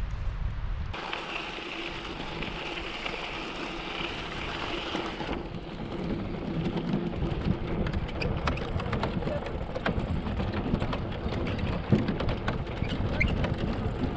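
Bicycle riding along the rail trail onto a wooden trestle deck: a steady rushing noise, then from about five seconds in a continual patter of clicks and rattles as the tyres run over the deck planks.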